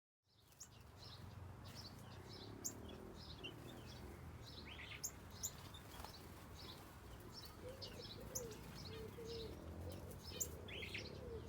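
Small birds chirping: many short, high notes scattered throughout, joined from about halfway by a lower call repeated every half second or so, over a steady low background hum.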